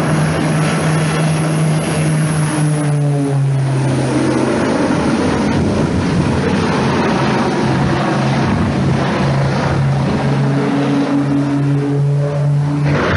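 Twin-engine propeller airplane flying low overhead, its engines and propellers giving a loud, steady low drone. The drone eases off in the middle and comes back strongly near the end as the plane banks steeply back toward the ground.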